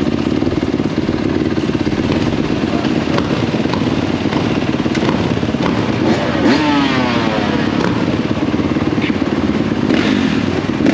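Dirt bike engines running under way, with a steady engine note. Its pitch falls away about six seconds in and shifts again near the end.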